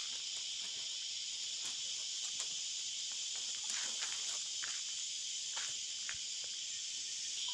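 Steady high-pitched insect chorus. Over it come light scattered clicks and rustles of bamboo strips being bent and tucked into a woven basket.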